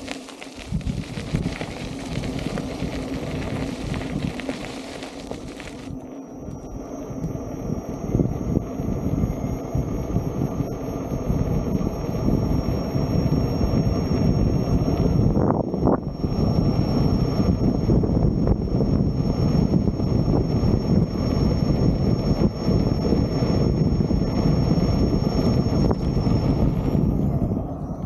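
Wind buffeting the microphone of a camera following an electric unicycle ride, a dense low rumble that grows louder as the riding speed builds. A faint steady high whine runs underneath from about six seconds in.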